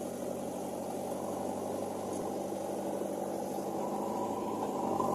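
Backhoe loader's diesel engine running steadily, growing a little louder near the end.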